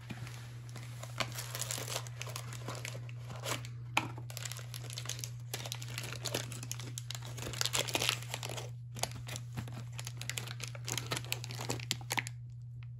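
Stiff translucent wrapping paper crinkling and rustling as it is unfolded by hand from around a pair of new-old-stock roller bearings. The crinkling runs almost continuously, with brief pauses about four and nine seconds in, and stops just before the end.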